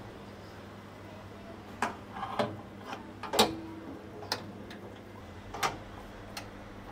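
Steel kokoreç skewers knocking and clinking against the notched metal rack of a vertical charcoal grill as raw skewers are set in place, about six separate short knocks.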